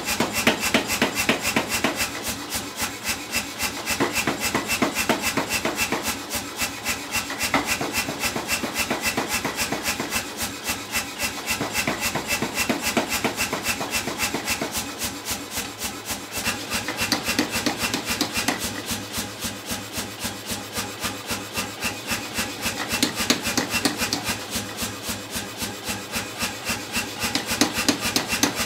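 Power hammer striking a red-hot round steel bar in a rapid, steady run of blows, the force easing and picking up again a few times as the bar is drawn down.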